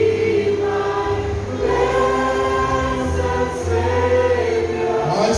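A choir singing a slow gospel hymn, sustained notes over a low bass accompaniment.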